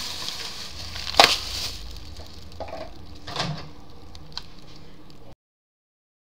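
Kitchen handling noise: a sharp loud knock about a second in, a smaller clatter a couple of seconds later and a few light ticks over a steady room hiss, then the sound cuts off abruptly to silence.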